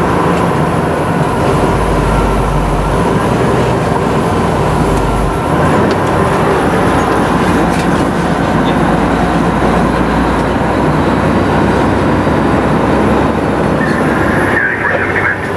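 A fire engine's diesel engine and road noise heard from inside the cab while driving: a loud, steady drone with a heavier low rumble for a few seconds early on.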